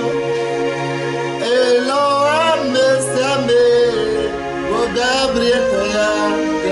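A man singing a slow, melodic song over instrumental backing with long held chords.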